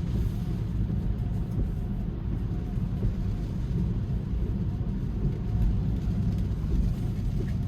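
Steady low rumble of a Tesla driving on wet roads in a rainstorm, heard inside the cabin: tyre and road noise with wind.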